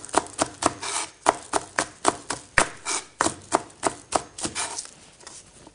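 Knife chopping green onions on a plastic cutting board: quick, even strokes about four a second, each a sharp knock of the blade on the board, stopping near the end.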